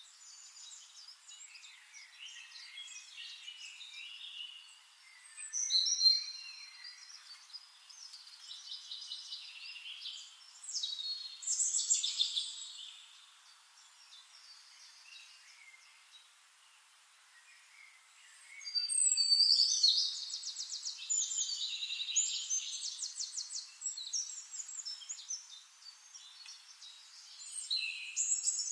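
Songbirds singing and chirping in quick trills and twittering phrases, with louder bursts of song about six and twelve seconds in, again from about nineteen to twenty-three seconds, and near the end. The sound is thin, with no low end.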